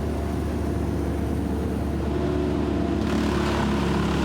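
Large engine running steadily at constant speed, a low hum with a stack of steady tones, and a little more hiss coming in about three seconds in.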